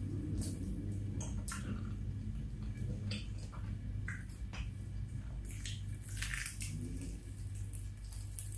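A person biting and chewing a crispy deep-fried chicken drumstick, with many short crunches of the fried coating and moist chewing, one louder crunch about a second and a half in. A steady low hum runs underneath.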